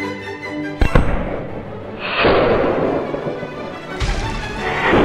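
Homemade combustion potato cannon firing: a sharp bang about a second in, then a longer, noisier blast about two seconds in and another near the end, over orchestral music.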